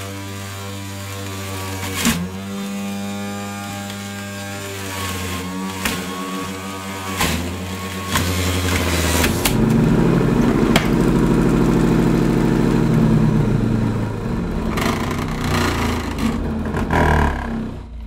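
Bosch 700 W centrifugal juicer running: a steady motor whine with a few sharp knocks, then, as produce is pressed down the feed tube, the motor pitch drops under load and the sound turns louder and grittier as the spinning blade shreds it. The motor begins to wind down at the very end.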